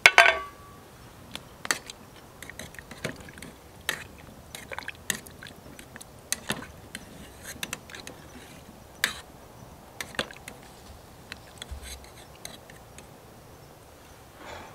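A sharp clink with a brief ringing tone, then scattered light clicks and knocks, roughly one or two a second.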